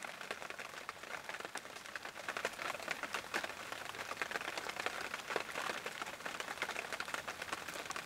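Rain pattering: a dense, irregular patter of many light drops.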